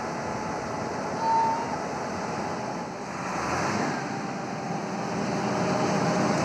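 An engine running steadily under a constant outdoor noise, with one short high tone about a second in.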